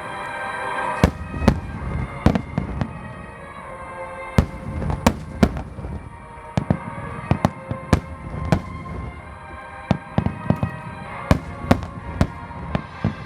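Aerial fireworks shells bursting in rapid, irregular succession, sharp bangs several a second at times with rumbling echoes between them, over music playing steadily.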